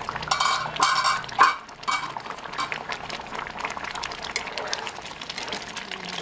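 Broken wheat rava simmering in water in an open kadai, with a steady popping bubble. In the first second and a half a few metal clinks of cookware ring out over it.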